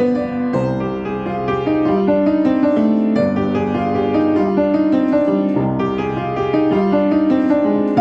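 Upright piano being played: a fughetta, a steady stream of notes with several lines sounding at once.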